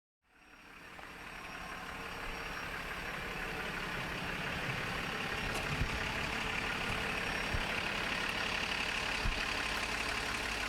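An engine running steadily, fading in over the first couple of seconds, with a few faint knocks.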